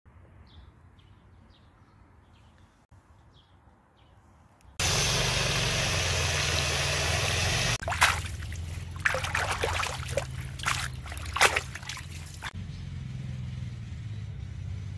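A steady rush of water for about three seconds, then irregular splashing and sloshing as hands wash a heap of shepherd's purse (naengi) in a plastic basin of water, stopping a couple of seconds before the end.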